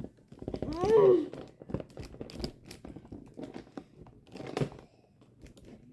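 Plastic toy packaging crinkling and tearing as it is pulled open by hand, in many small sharp crackles. A brief wordless vocal sound from a child comes about a second in.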